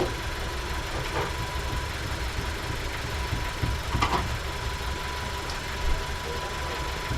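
An engine idling steadily, a low even rumble, with a brief clatter about four seconds in.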